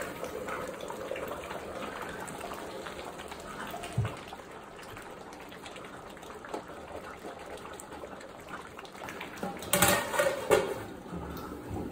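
Fish curry bubbling and sloshing in an aluminium pot as a ladle stirs through it. Near the end the aluminium lid clatters back onto the pot in a few sharp metal knocks, the loudest sounds.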